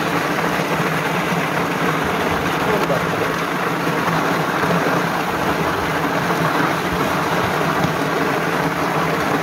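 Walnut hulling machine running: walnuts churning in its water-fed drum against the U-type saw blades make a steady, wet, noisy churn over the low hum of its 550 W electric motor.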